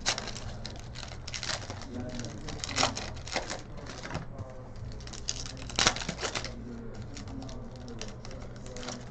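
Trading card packs and cards being handled: a quick run of crinkles, clicks and snaps of pack wrappers and card stock, loudest a little under 3 s in and again near 6 s, over a steady low hum.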